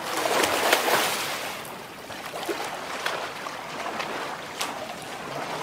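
Pool water splashing under a swimmer's front-crawl strokes, louder in the first second or two, with a few sharp slaps of arms entering the water.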